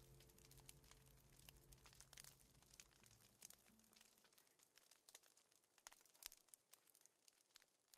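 Near silence: the song's last chord dies away over the first three or four seconds, with faint scattered crackles throughout.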